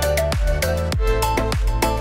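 Background electronic music with a steady beat and heavy bass.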